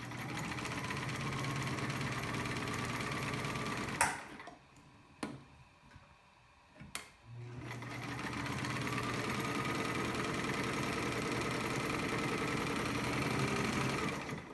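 Freshly overhauled all-metal Sears Kenmore 148-series sewing machine stitching through fabric, running smoothly at a steady speed. It stops with a click about four seconds in, and a few more clicks follow during the pause. Near the middle it starts again, picks up speed and runs steadily.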